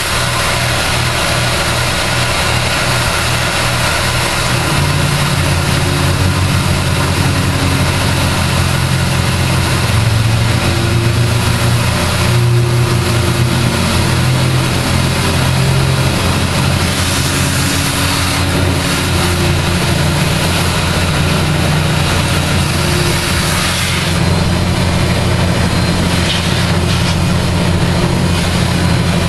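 Jet JMD-15 mill/drill, retrofitted to CNC, running its spindle while an end mill cuts a curved slot into a cast-iron brake rotor. It makes a loud, steady machining noise with a motor hum that steps up about five seconds in.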